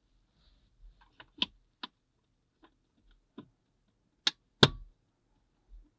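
Plastic cabin air filter cover being pushed back into the HVAC housing: scattered light plastic clicks and taps, then two sharper snaps close together about four and a half seconds in as its side clips latch.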